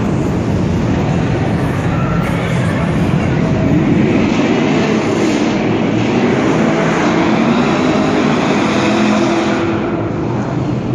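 Cars doing donuts on concrete: engines revving hard and tyres spinning, loud, with the noise brightening from about two seconds in and easing off just before the end. It echoes under a low overpass deck.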